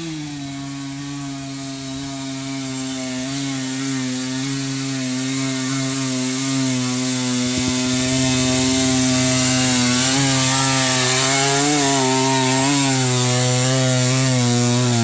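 Two-stroke dirt bike engine climbing a muddy trail at steady revs, growing louder as it comes closer. In the second half the pitch wavers up and down as the throttle is worked.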